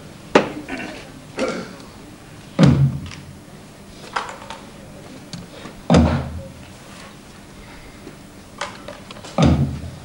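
A series of heavy, booming thuds at uneven intervals. Three big deep ones come about two and a half, six and nine and a half seconds in, each ringing out briefly. Lighter knocks fall between them.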